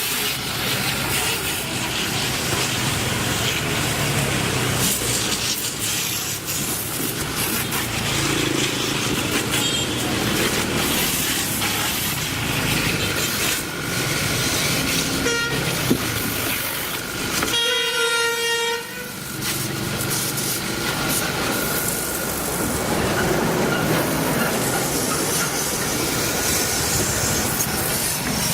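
A steady, loud rushing hiss with a faint steady whine under it, like a spray or blower machine running. A short horn-like honk sounds about two-thirds of the way through.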